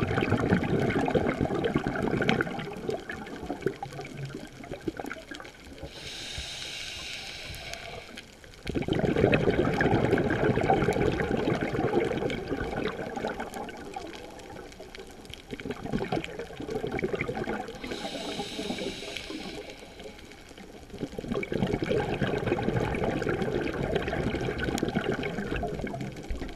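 Scuba diver breathing through a regulator, heard underwater: long stretches of bubbling from exhaled breath, broken twice by the high hiss of an inhalation, about twelve seconds apart.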